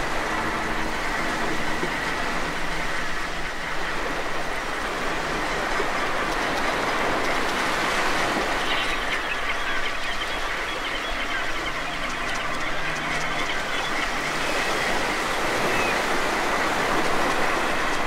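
Steady underwater rush recorded from a camera in its housing, with a few faint short dolphin whistles about halfway through and again near the end.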